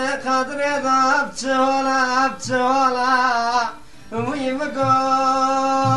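A man singing a folk song in long, wavering, ornamented phrases, with a short pause about four seconds in.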